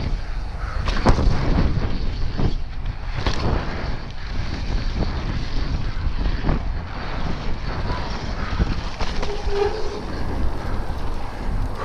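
Wind buffeting the action camera's microphone over the rumble of Yeti SB150 mountain bike tyres rolling fast down a dirt trail. Frequent sharp clicks and knocks come from the bike rattling over bumps and roots.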